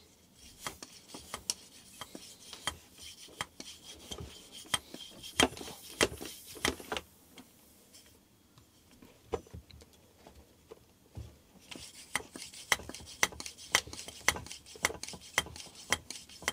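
Hand shock pump being worked to pressurise the air spring of a Cannondale Headshok fork: a run of small clicks and rubbing scrapes from the pump strokes. It pauses for a few seconds in the middle, then resumes at about three clicks a second.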